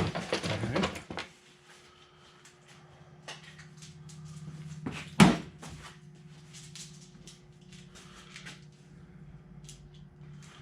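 Hand-work noises from taking apart a truck's factory air intake: scattered clicks and small knocks of tools and parts, with one sharp knock about five seconds in, over a steady low hum.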